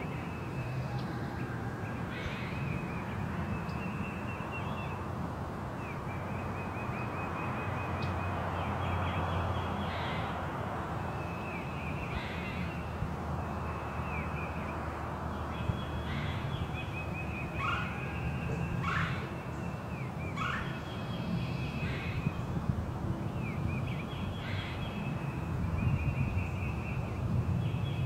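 Spring forest birdsong: a songbird repeating short, rapid trills over and over, with a few sharp, harsher bird calls near the middle, over a steady low background rush.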